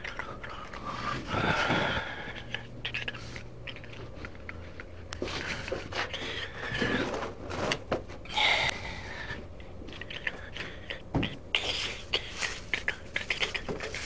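Irregular scrapes, clicks and rustles of someone handling tools and parts by hand in a workshop, with louder scraping bursts about a second and a half in and about eight and a half seconds in.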